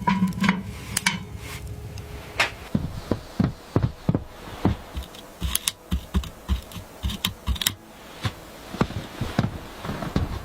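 An irregular series of sharp clicks and light knocks, several a second at times, with no steady rhythm.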